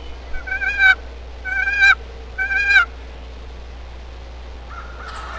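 Three loud turkey calls about a second apart, each a short run of quick, rising notes, then a fainter call from farther off near the end.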